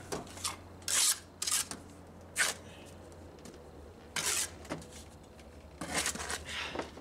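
Steel trowel scraping rapid-set mortar against clay tile block as it is packed into a hole in the wall: several short scrapes at irregular intervals.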